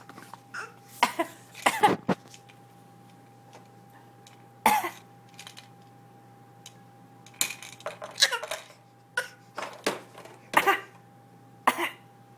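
A baby giving short, deliberate fake coughs, about eight of them, one every second or so.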